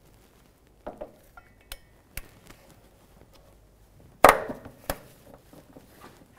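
Scattered metal clinks and knocks of a socket and extension bumping against the bracket and underbody while a bolt is being lined up. The loudest knock comes about four seconds in.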